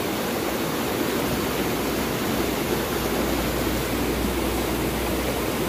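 Stream water rushing steadily down small rocky cascades into a pool.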